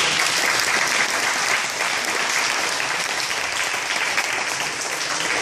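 A group of young children applauding, a steady spell of hand-clapping.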